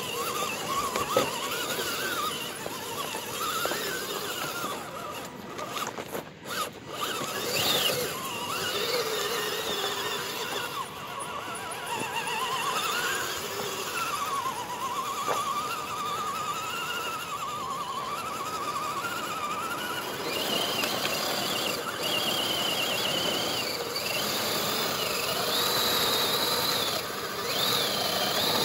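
RC rock crawler's electric motor and gears whining, the pitch wavering up and down with the throttle as it crawls over rocks, then running higher-pitched in the last third as it climbs a loose dirt slope.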